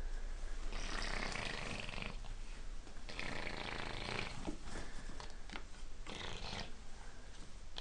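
A baby breathing in excited, breathy huffs, three of them, each about a second long, with a few small clicks between them.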